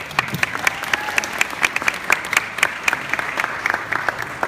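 Audience applauding, with many sharp individual claps close by standing out over the general clapping, which thins out near the end.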